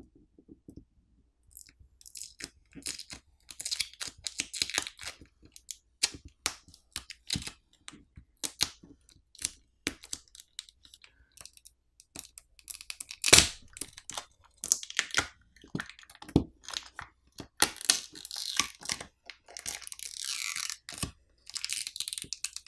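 Battery adhesive of a Samsung Galaxy A24 tearing as the battery is pried and peeled off the midframe with its pull pouch: a long run of sharp crackles and clicks. There are denser tearing stretches, one louder crack about halfway through, and more tearing toward the end as the battery comes free.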